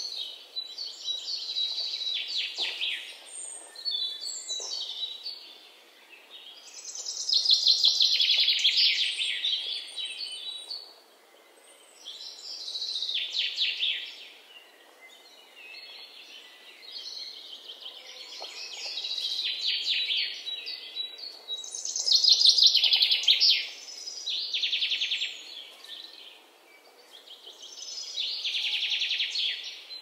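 A songbird singing a fast trilled phrase, one to three seconds long, that slides downward in pitch. It repeats about eight times with short pauses between phrases, over a faint steady outdoor background.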